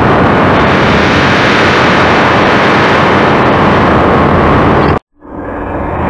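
Flying-monster roar sound effect: a loud, rough, sustained roar that cuts off abruptly about five seconds in, followed at once by another roar swelling up.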